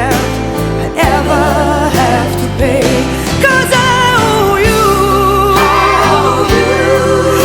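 Background music: a slow pop ballad, with a wavering lead melody over steady bass notes.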